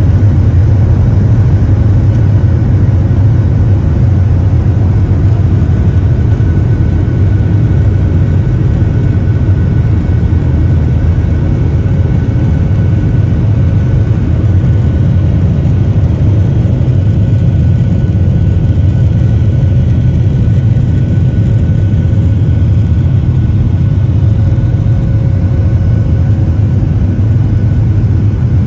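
Jet airliner's engines at takeoff thrust, heard inside the cabin: a loud, steady low rumble with a faint steady whine above it.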